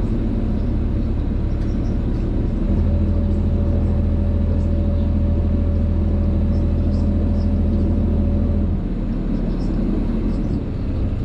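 Tour boat's motor running with a steady low rumble. A stronger, even hum comes in about three seconds in and drops away about nine seconds in.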